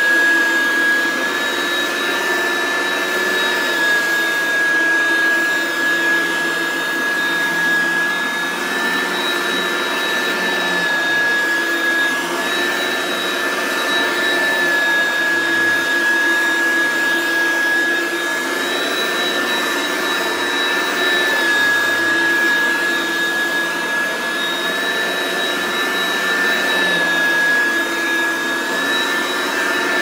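Oreck XL XL2100RHS upright vacuum cleaner running steadily while vacuuming hair from carpet, with a high motor whine that shifts slightly up and down in pitch every few seconds.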